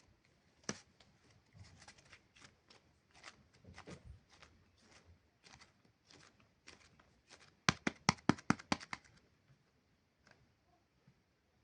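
Hands unboxing and handling super clay: scattered soft clicks and crackles, then a quick run of sharp, loud snaps about eight seconds in.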